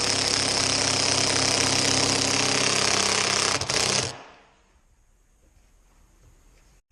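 Power drill/driver running steadily under load for about four seconds, driving a long screw through the track into the MDF, then stopping.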